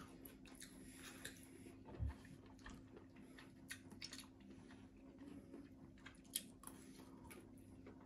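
Faint eating sounds: chewing and scattered light clicks of metal chopsticks against ceramic bowls and a plate, over a low steady hum.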